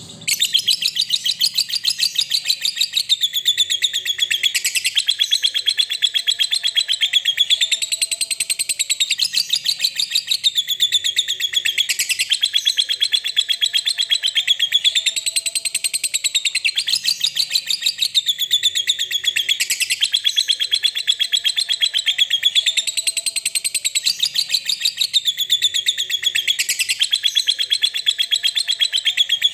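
Lovebird chattering its long 'ngekek' song: an unbroken stream of very rapid, high-pitched notes that swell and dip about every two seconds.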